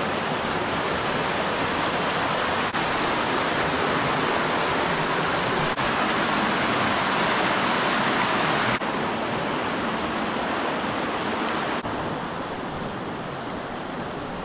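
Rushing water of a creek cascade or waterfall, a loud steady hiss that drops a little in level a couple of times in the second half.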